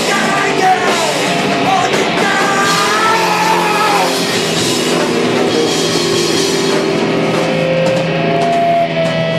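Punk rock band playing with drums and distorted electric guitar, and a sung vocal line over the first four seconds or so. After that, held instrumental notes carry on over the drums.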